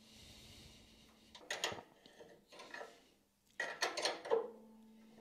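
A hex key and spanner clinking and scraping on the steel bolt of a lathe spindle-brake bell crank as it is tightened: a few short metal clicks in three little bursts, the loudest a second before the end.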